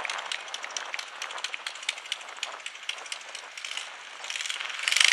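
Scattered hand-clapping from a crowd, irregular and thinning out. About four seconds in, a louder steady noise comes up over it.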